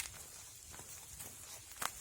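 A hiker's footsteps on the trail, faint, with two sharp clicks: one at the start and one just before the end, over a steady light hiss.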